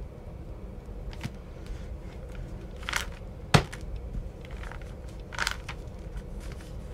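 Hands kneading and pressing soft modelling clay on a table: a few short scuffs and rustles, with one sharp tap about three and a half seconds in, over a steady low hum.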